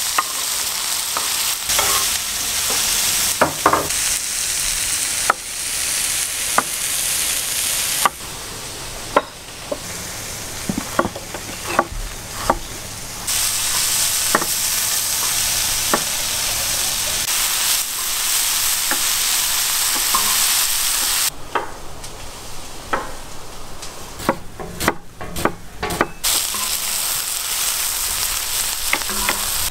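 Chopped onions sizzling as they fry in a large black round pan, stirred and scraped with a wooden spatula that knocks and scrapes on the metal again and again. For a stretch in the last third the sizzle is quieter and the spatula clicks stand out more.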